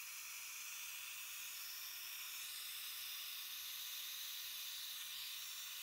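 Compressed-air brake fluid suction tool hissing steadily as it draws old brake fluid out of the master cylinder reservoir.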